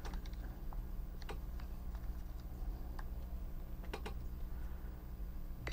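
Light clicks and taps of small plastic gears and gearbox housing parts being handled and fitted together, a handful of sharp clicks at irregular intervals over a steady low hum.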